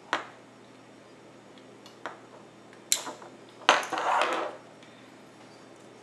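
Folding metal multitool being handled and opened out: four sharp metallic clicks and clinks, the last and loudest running into a brief scraping rattle of the steel handles and jaws about four seconds in.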